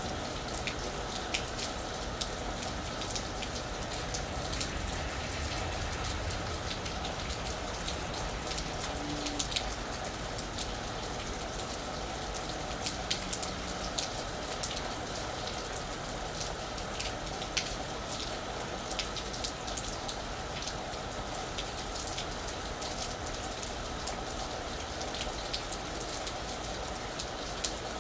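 Steady rain falling on a roof, a constant hiss with many sharp individual drop hits scattered throughout.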